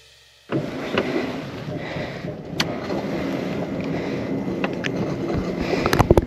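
Steady on-the-water background noise from a fishing boat begins abruptly about half a second in. A few sharp clicks and knocks fall through it, the loudest pair close together near the end.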